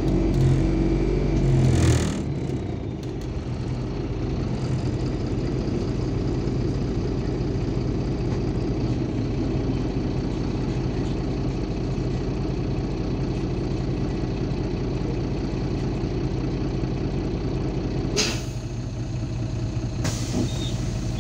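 Cabin sound of a MAZ 203 low-floor city bus: its diesel engine runs louder for the first two seconds as the bus comes to a halt, then idles steadily at the stop. Near the end come two short hisses of compressed air from the bus's pneumatic system.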